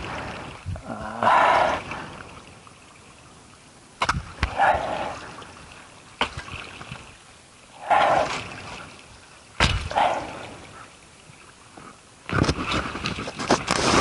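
Digging and clearing soil by hand: a few sharp knocks of a tool against earth or wood and several short muffled sounds, then a stretch of steady scraping and rustling of dirt from about 12 seconds in.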